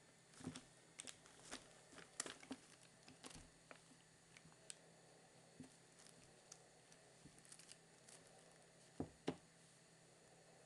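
Two kittens play-fighting, heard faintly as scattered light taps and rustles of paws and bodies scuffling, with two sharper thumps close together about nine seconds in.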